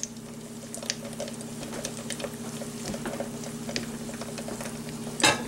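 Corn on the cob frying in oil in a skillet: the hot oil sizzling and popping in scattered small crackles over a steady low hum, with one louder knock shortly before the end.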